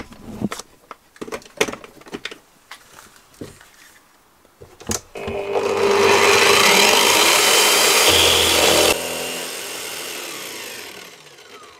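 Drill press cutting a ring blank from oak with a ring-cutter bit. A few scattered knocks and clicks come first. About five seconds in, the drill starts and the cutter bites into the wood with a loud, steady cutting noise for about four seconds. The noise then drops suddenly and the motor winds down, its pitch falling as it fades.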